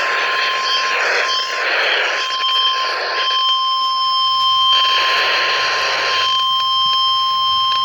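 NOAA Weather Radio 1050 Hz warning alarm tone: a single steady beep held without a break during the weekly test of the warning alarm. It comes through a weather radio receiver over a hiss of static that swells and fades.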